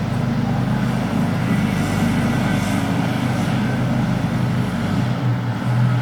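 Steady rain with a constant low rumble underneath.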